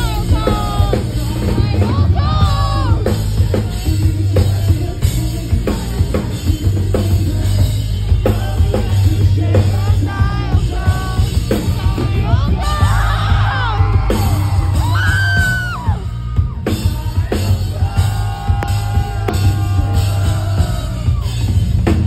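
Loud live rock band playing: sung and yelled lead vocals over electric guitars and a pounding drum kit, with a heavy bass.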